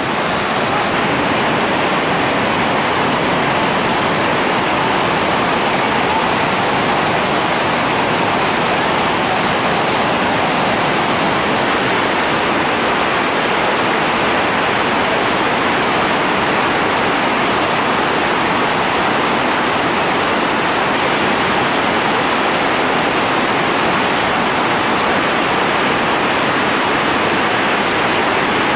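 Loud, steady rush of whitewater rapids pouring over rock ledges.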